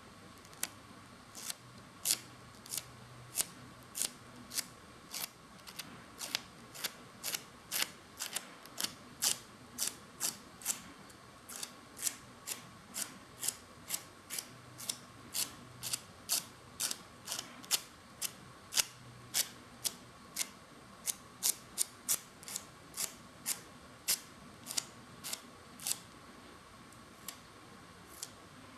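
A long series of sharp, irregular clicks, about two a second, over a faint steady hum.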